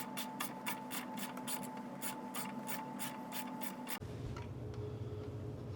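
Ratchet wrench with a 9 mm socket clicking steadily, about four clicks a second, as a bolt is backed out. The clicking stops suddenly about four seconds in, and a low steady hum follows.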